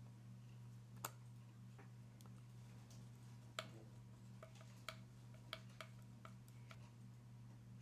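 Faint, scattered clicks and taps of small parts and tools being handled during assembly of a 3D-printed RC car chassis, about six in all, over a low steady hum.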